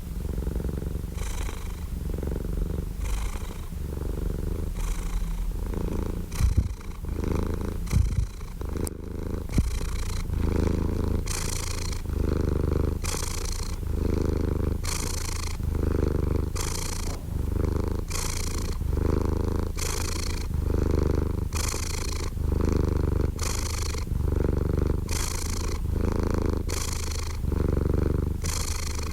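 A domestic cat purring steadily up close, the purr swelling and easing about once a second with each breath in and out. Two brief low thumps come about a quarter of the way in.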